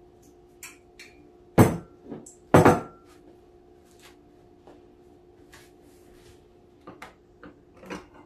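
Kitchen clatter: two loud knocks about a second apart, each with a brief ring, among lighter clicks and taps of things being handled, over a steady hum.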